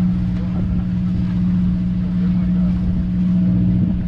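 A fishing boat's engine running with a steady, even low hum.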